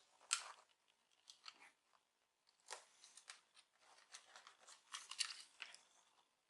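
Faint scattered scratches and small clicks of a pin picking at the rubber screw covers on a laptop's plastic screen bezel to prise them out.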